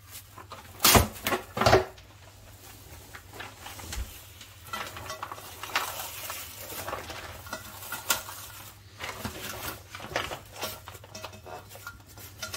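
Plastic cling film being pulled off the roll and stretched tightly around the dough, crinkling and rustling throughout, with two sharp knocks about a second in.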